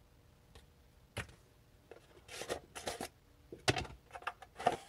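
Unboxing items being handled on a table: scattered light taps and clicks with short rustles, sparse at first and busier over the last few seconds.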